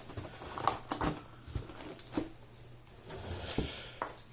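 Kit parts and packaging being handled and set down: scattered light knocks and clicks, with a stretch of rustling about three seconds in, over a faint steady hum.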